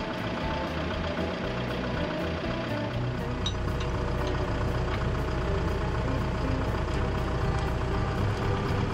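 TYM tractor's diesel engine idling steadily, its low hum growing a little stronger about three seconds in, with a few faint metal clicks as the hydraulic top link is fitted to the drag harrow.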